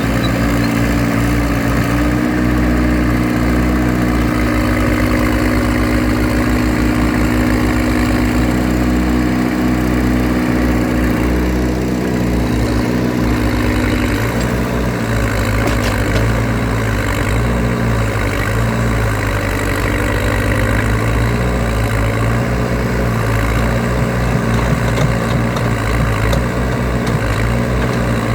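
Backhoe loader's diesel engine running steadily, with a held higher tone over it until about halfway through. After that the engine note rises and falls a little.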